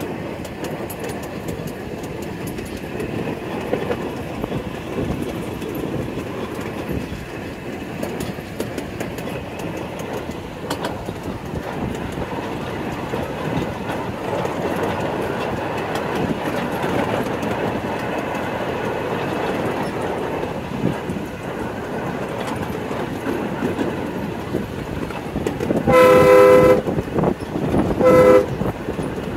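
Small ride-on railroad's open passenger cars rolling along the track, a steady rumble with wheel-on-rail clatter. Near the end the locomotive sounds its horn, a longer blast followed by a short one.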